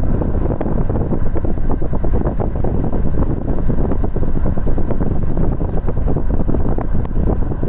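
Wind buffeting the microphone as a steady, loud low rumble, with many small knocks and rattles throughout.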